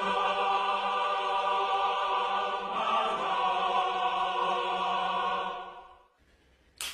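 Angelic choir 'aah' sound effect: a sustained choral chord that shifts about three seconds in and fades out shortly before the end. A brief sharp noise follows right at the end.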